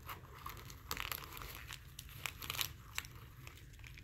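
Packing material crinkling and rustling as a hand digs through crinkle-cut paper shred and bubble wrap to lift out a satin drawstring pouch: irregular faint crackles and ticks, a little louder about a second in.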